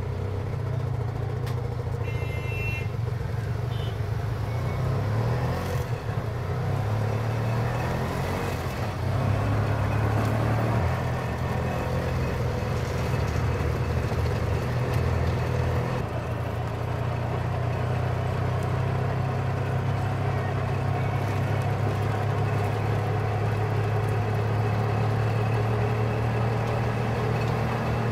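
Indian auto rickshaw engine running steadily with a low, even running note that shifts slightly about nine seconds and sixteen seconds in. A short high-pitched tone sounds briefly about two seconds in.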